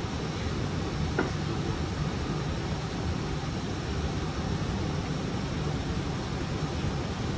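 Steady flight-deck noise of an Airbus A320 in flight on approach: an even rush of air with a low hum, and a faint tick about a second in.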